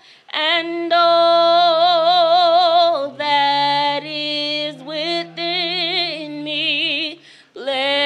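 A woman singing solo, holding long notes with a wide vibrato, with short breaks between phrases over a faint low held tone.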